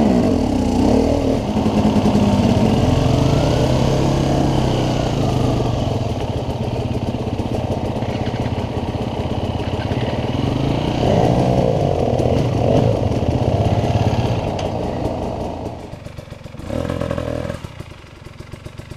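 Enduro motorcycle engine running and revving on a steep off-road climb, the revs rising and falling. About sixteen seconds in it drops to a quieter, pulsing low idle.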